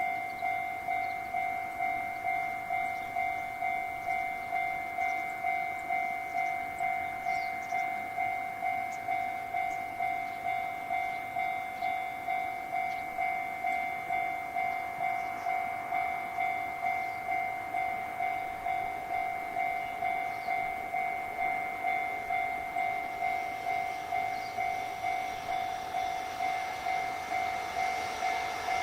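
Japanese level-crossing warning bell ringing, an even two-tone ding about one and a half times a second, which signals that a train is approaching. Near the end the noise of the approaching train grows beneath it.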